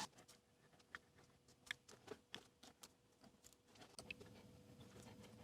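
Near silence, broken by a dozen or so faint small clicks at irregular intervals, over a faint steady hum.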